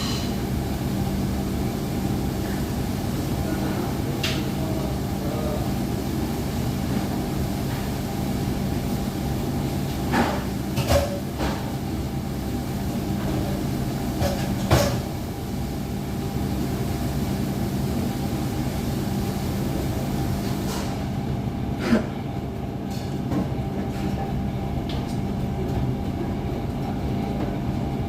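Steady low mechanical rumble and hum, broken by a few sharp knocks: a cluster about ten seconds in, one near fifteen seconds and one near twenty-two seconds.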